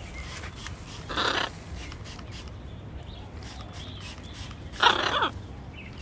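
Macaw giving two short, harsh squawks, one about a second in and another near the end.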